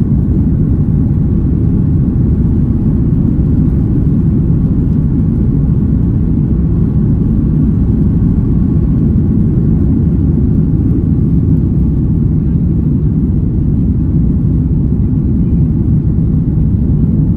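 Cabin noise of an Airbus A330-300 during its takeoff run and liftoff: the Rolls-Royce Trent 700 engines at takeoff thrust, heard as a loud, steady, low rumble.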